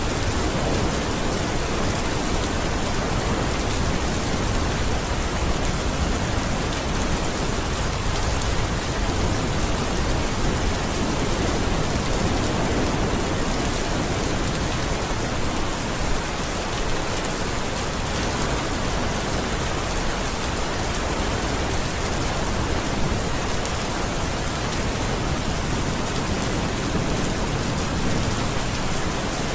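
Steady heavy rain falling and pattering on surfaces, a dense even hiss.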